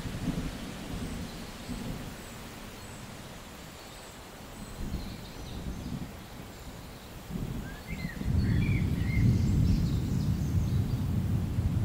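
Outdoor ambience: a low rumble that swells and grows louder about eight seconds in, with birds chirping.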